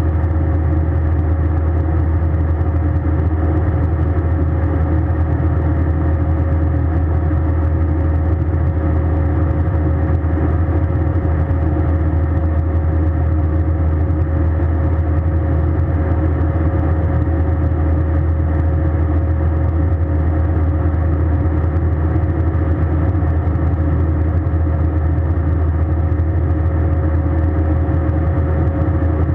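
Steady cabin noise of an Airbus A320 airliner in flight: an even, unchanging low drone of engines and airflow with a faint steady hum above it.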